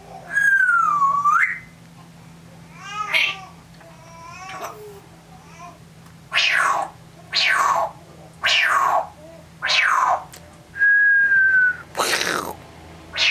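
African grey parrot whistling and calling. It starts with a whistle that dips and rises again, then a few shorter calls, then four falling whistles about a second apart. Near the end comes one steady whistle, followed by a short, harsh squawk.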